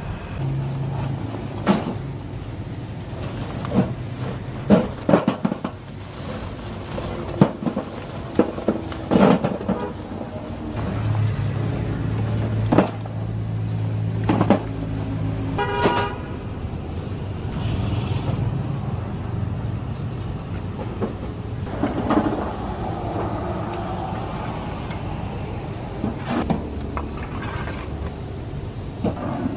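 Lumps of wood charcoal knocking and clattering as they are handled and dropped into a metal bin and grill, over the steady hum of street traffic. A short car horn toot sounds about halfway through.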